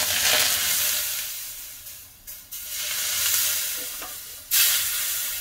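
Smoking-hot vegetable oil sizzling as it is poured onto minced garlic and spices heaped on grated carrots, scalding them. The sizzle comes in surges, fading almost away about two seconds in and flaring up suddenly again about four and a half seconds in.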